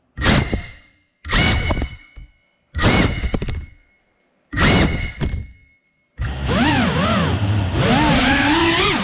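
Four sudden hits, each fading out over about a second with dead silence between them. Then, about six seconds in, a racing FPV quadcopter's motors start a continuous whine that rises and falls in pitch with the throttle.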